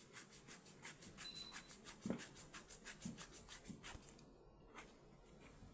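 Faint, quick, evenly spaced scratchy clicks, about six a second, as a threaded part of a wine bottle filler's nozzle is turned by hand on its threads, with a few soft knocks around two and three seconds in. The clicking stops about four seconds in.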